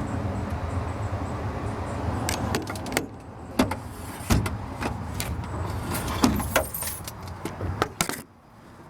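Scattered clicks, knocks and light metallic rattles of things being handled in an old pickup's cab, over a steady low hum that stops about eight seconds in.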